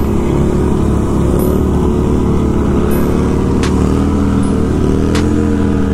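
Motorcycles running at road speed, with heavy wind rumble on a helmet-mounted microphone. In the second half, engine pitch rises and falls as the bikes around are revved, and there are two sharp ticks.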